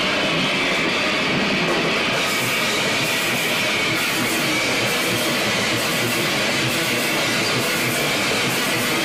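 Live heavy metal band playing, heard as a loud, steady, dense wash of distorted guitar and drums.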